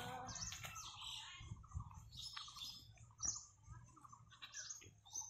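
Several small birds chirping in short, scattered calls, with a single knock about three seconds in.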